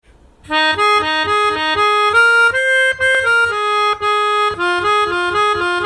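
Intro music: a melody of short pitched notes, a few per second, over a soft low beat, stopping abruptly at the end.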